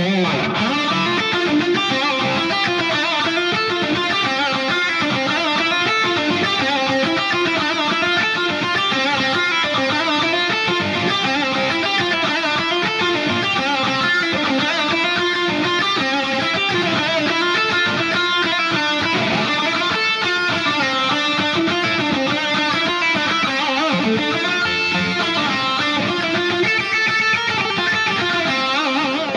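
Solo electric guitar playing continuously, with rapid runs of notes. It is an ESP EII Arrow run through a Line 6 POD HD Pro modeler and a Rocktron power amp into an EVH 5150III 2x12 cab, heard in the room through a camera microphone.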